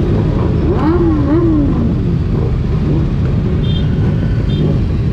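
Motorcycle running at road speed in a group ride, with steady wind noise on the microphone.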